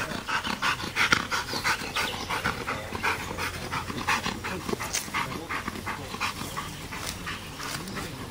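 Belgian Malinois panting hard in quick, even breaths, about three a second, easing off in the last few seconds.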